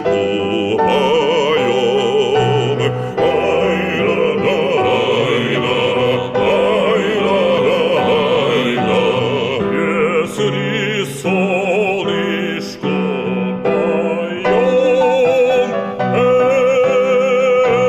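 Operatic singing with strong vibrato over instrumental accompaniment, a melody of changing notes ending on long held notes.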